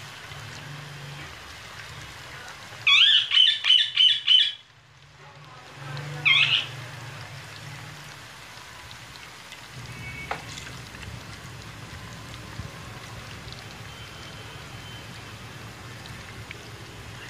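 Chicken pakora deep-frying in hot oil in a wok, a steady sizzle. About three seconds in a bird calls over it with a quick run of about six loud chirps, and gives one more short chirp a few seconds later.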